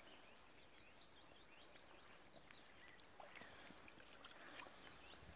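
Faint birdsong: many short chirps and whistles over a low, even hiss.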